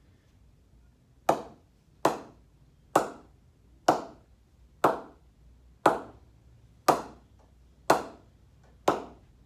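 A cricket ball struck repeatedly on the face of a new, unknocked SG Triple Crown Classic willow bat, about once a second, each hit sharp with a brief ring: the bat's ping being tested.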